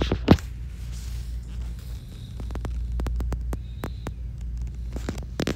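Metal utensil clinking and tapping against a pot and bowl as cooked shrimp are scooped out of the broth, with a louder knock just after the start, over a steady low hum.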